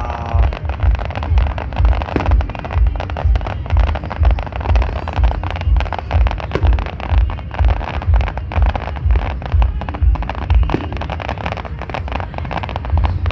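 Fireworks crackling and popping densely over a regular low thudding beat of music.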